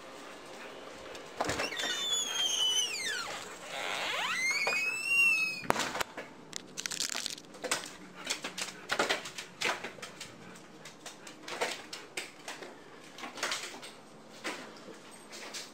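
A house's back door opening and shutting: a few seconds of high gliding squeals, then a sharp knock about six seconds in, followed by scattered light knocks and rustles.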